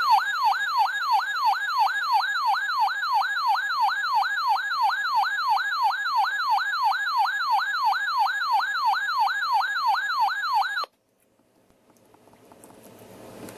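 A weather alert radio's electronic siren alarm signals a warning. The tone warbles in quick repeating downward sweeps, about three a second, for roughly eleven seconds, then cuts off suddenly. Near the end, radio hiss comes up as the receiver opens for the broadcast warning.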